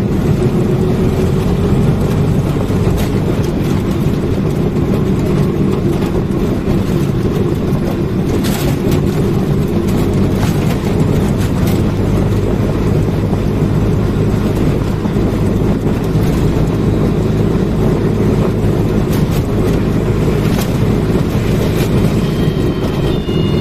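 Auto-rickshaw's small engine running steadily under way, with a low drone from inside the cabin and a few short knocks and rattles along the way.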